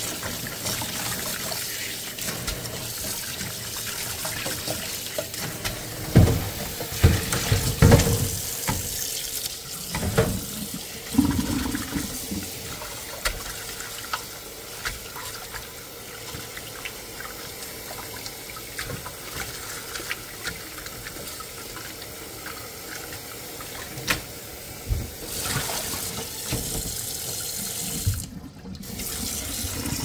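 Cold water from a kitchen tap runs into a pot in a stainless steel sink while a hand rinses blanched cauliflower mushroom in it. There are a few louder bumps and splashes about six to twelve seconds in.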